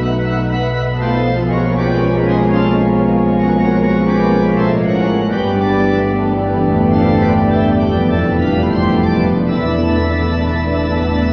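Church pipe organ played on manuals and pedals: sustained chords over held bass pedal notes, the harmony moving every second or two, with a new bass note about five seconds in and again near ten seconds.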